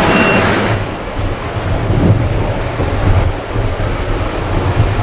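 Jet engine noise from a Boeing 737-800 climbing out after takeoff, a full hiss with a faint steady whine, breaks off suddenly under a second in. A low, gusting rumble of distant jet noise follows, with wind buffeting the microphone.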